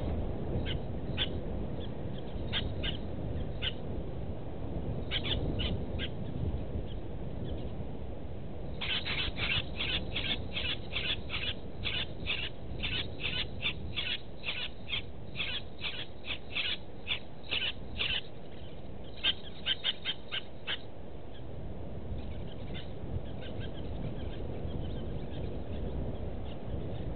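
A bird calling in a series of short, high notes. At first they come scattered, then in a fast run of about three a second from about a third of the way in, which stops with a short gap and ends a few notes later, over a steady low outdoor hum.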